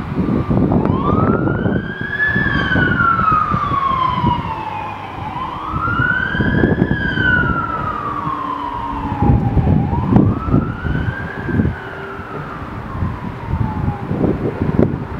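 A fire engine's siren wails in three long cycles. Each one sweeps up quickly, then glides slowly down, and the last cuts off near the end.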